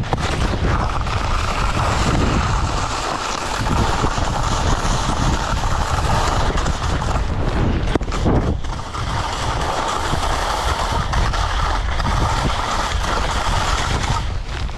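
Skis sliding and carving over snow at speed, a continuous scraping hiss, with wind rushing and rumbling over the body-mounted camera's microphone.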